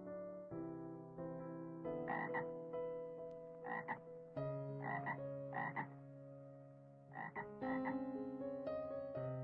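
A frog croaking in a series of short calls, mostly in pairs, with soft piano music underneath.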